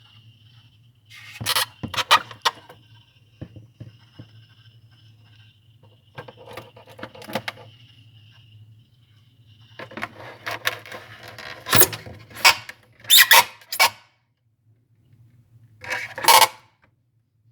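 Steady low hum with a faint high whine from a running frost-free refrigerator, broken by irregular bursts of clattering and scraping, the loudest in the second half. The hum cuts out for a few seconds near the end.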